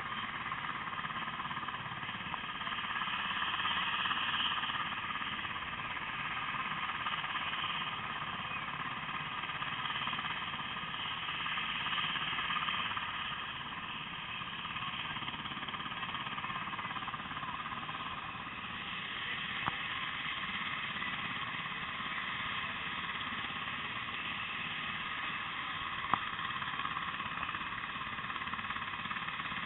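A steady mechanical drone with several held whining tones in the upper range, rising and falling slightly in level, with two brief clicks in the second half.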